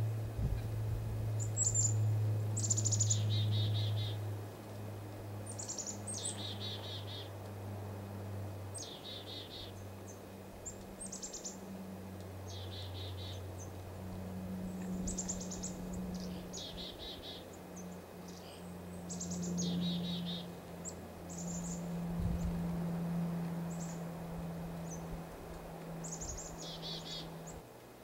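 Black-capped chickadees repeatedly giving their chick-a-dee call, about eight times: short high opening notes followed by a run of lower, buzzy dee notes. A steady low hum runs underneath.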